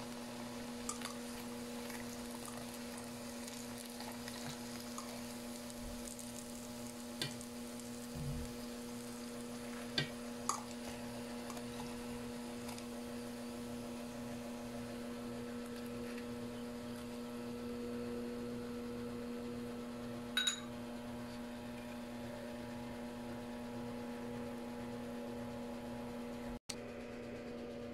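Oil sizzling faintly in a stainless pan as breaded sweet potato fries deep-fry, under a steady electrical hum. A few light clicks of metal tongs against the pan are scattered through.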